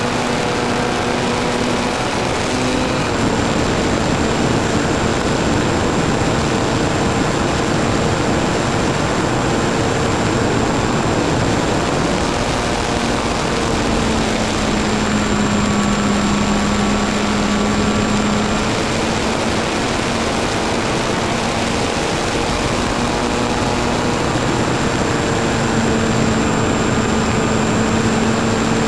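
A small propeller-driven aircraft's motor and propeller drone steadily, heard from a camera mounted on the aircraft, with rushing wind noise. The drone's pitch sinks a little around the middle and comes back up near the end.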